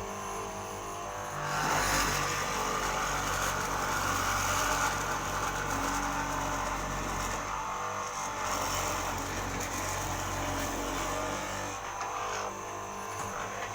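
Electric motor of a woodworking mortising machine running steadily, with a louder cutting noise from about a second and a half in until near the end as the bit works into the wood.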